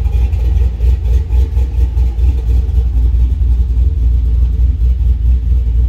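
Supercharged 5.3-litre V8 idling with a low, uneven rumble, the lope of its Comp Thumper cam, through stainless headers and a Flowmaster 40 series exhaust.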